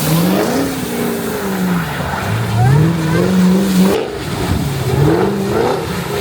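Car engine revving hard, its pitch rising and falling several times, with one long climb held high for about a second and a half before it drops off sharply about four seconds in.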